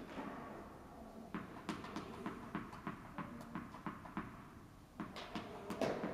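Light taps and footfalls on an indoor tennis court, unevenly spaced at several a second, echoing in the hall. A sharper, louder knock comes near the end.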